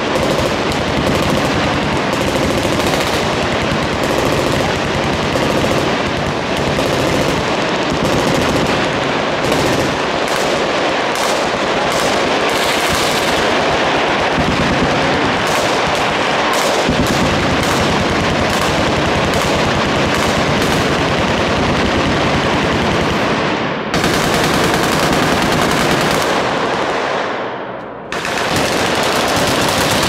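Massed automatic fire from many machine guns on a firing line, shooting continuously as a dense, unbroken rattle of shots. Near the end it thins briefly, then comes back at full strength.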